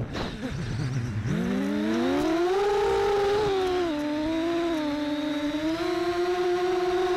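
Six-inch FPV quadcopter (ImpulseRC Apex, BrotherHobby 2806.5 1700Kv brushless motors, HQProp Ethix K2 props) whining in flight, its pitch following the throttle. The whine drops low about a second in, climbs over the next two seconds, dips slightly and then settles into a steady higher whine.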